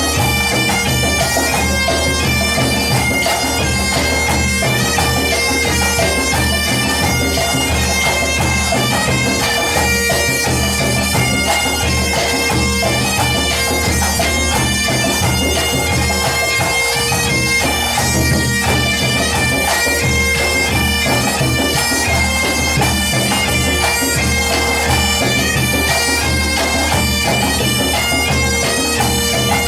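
Breton bagad pipe band playing an an dro dance tune: bagpipes carry the melody over a steady drone, with drums keeping a regular beat.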